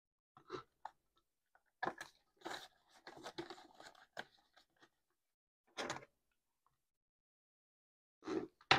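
Paper banknotes being handled and counted: short, scattered crinkles and rustles of the bills, a still gap of about two seconds, then a louder rustle and a sharp click near the end.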